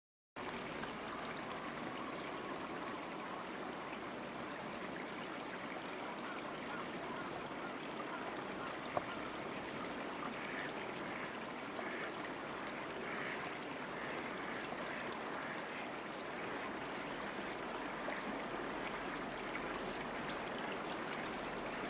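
Steady rush of flowing river water, with a few faint short calls in the middle and a single sharp click about nine seconds in.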